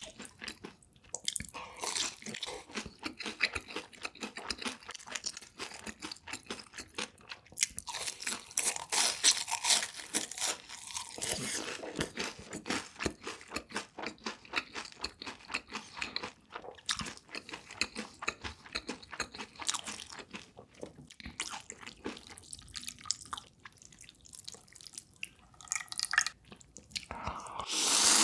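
Close-miked chewing with many crisp, irregular crunches of food in the mouth, with a louder rustling burst near the end.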